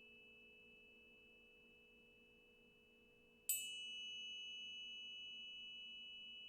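A high, pure ringing tone from a struck metal sound-bath instrument fades slowly. About halfway through it is struck again, with a bright attack, and rings out louder before fading slowly once more.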